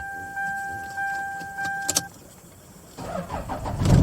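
A steady electronic warning tone with a few clicks sounds until about two seconds in and then stops. About three seconds in, the starter cranks the Toyota 1KZ-TE four-cylinder turbodiesel in rapid even strokes, and the engine catches at the very end.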